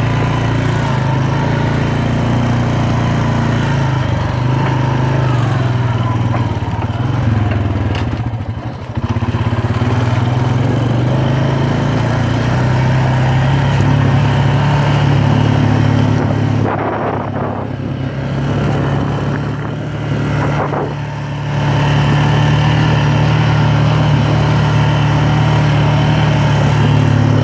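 ATV engine running steadily under way, its pitch shifting with the throttle, easing off briefly about a third of the way in and twice more past the middle.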